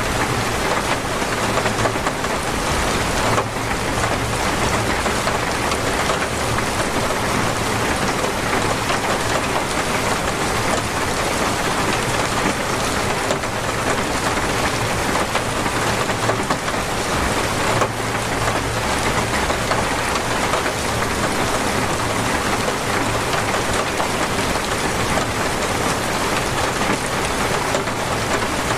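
Torrential rain pouring down steadily in a dense, even hiss.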